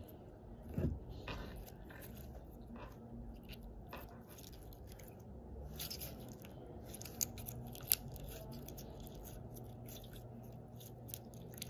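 A small slime being stretched and squeezed by hand, giving faint sticky crackles and small popping clicks, with a low thump about a second in and two sharper clicks a little past the middle.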